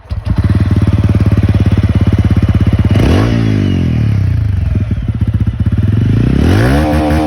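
TVS Ronin 225's single-cylinder engine idling with an even pulse, then blipped about three seconds in, its pitch rising and falling back, and revved again near the end.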